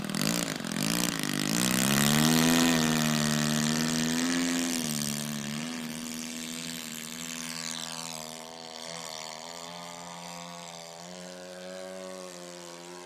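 Radio-controlled model airplane's small engine opening up for takeoff about a second and a half in, then running steadily at high throttle with its propeller buzzing, and fading as the plane climbs away.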